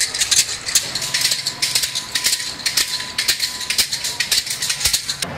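Self-flagellants' whips of bundled bamboo sticks clattering against bare backs in rapid, irregular clusters of sharp clacks.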